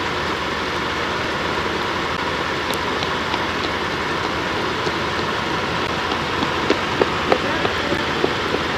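Steady rushing noise of a GMC Suburban running and rolling forward at low speed, with a few light clicks about two-thirds of the way through.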